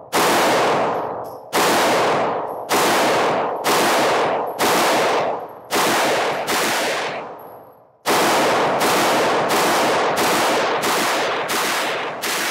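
Intratec TEC-DC9 (TEC-9) 9mm pistol fired semi-automatically, each shot followed by a long ring of echo from an indoor range. About seven shots come roughly a second apart, then after a pause of about a second and a half a quicker string follows at nearly two shots a second.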